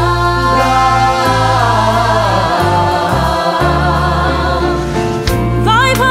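Recorded pop-gospel song: an ensemble choir holds a long chord over a steady bass line, and near the end a solo voice breaks into a sliding, ornamented run.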